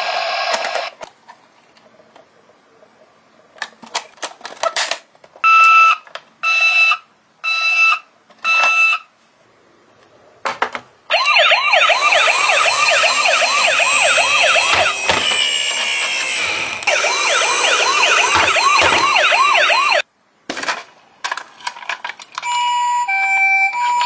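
Battery-powered toy police van's electronic sound unit, set off by pressing its roof buttons: four short beeps, then a loud, fast-warbling siren for about nine seconds that cuts off suddenly. Near the end a second toy siren starts, two notes alternating high and low.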